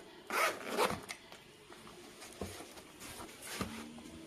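Zipper on a padded fabric laptop sleeve being pulled open, loudest in a quick zip about half a second in. It is followed by quieter rustling and a couple of soft knocks as the laptop is handled out of the sleeve.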